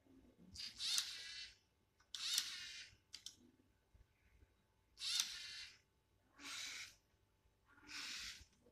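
LEGO Mindstorms EV3 motors whirring through their plastic gears in six short bursts, each under a second long.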